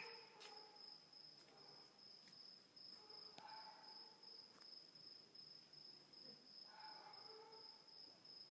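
Faint cricket chirping: one steady high-pitched trill broken by regular short gaps, with a few faint clicks and brief mid-pitched sounds behind it.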